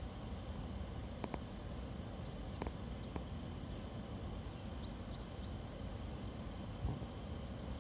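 Steady low rumbling roar of floodwater pouring through a dam's open spillway gates, heard from far off, with a few faint clicks and some faint high chirps.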